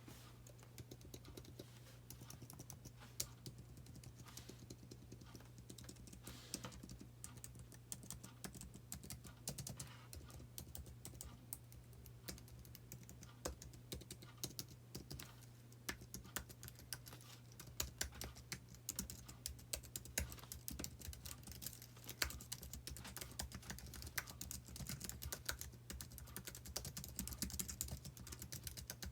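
Typing on an Apple Magic Keyboard: a steady stream of quick, light key clicks from its low-travel scissor-switch keys, growing busier and a little louder in the second half.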